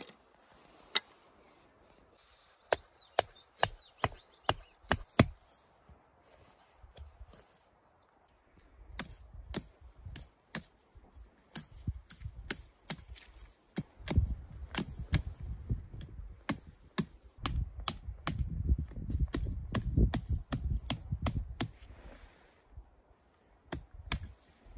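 Grohmann #4 survival knife chopping into wood: a run of sharp single strikes a few seconds in, then many quicker, heavier chops through a spruce sapling over the second half, with a low rumble under them.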